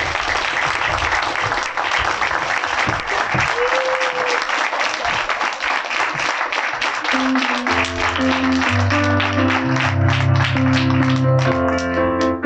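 Audience applauding, a dense clatter of many hands clapping. About seven seconds in, keyboard music with a bass line starts up under the applause.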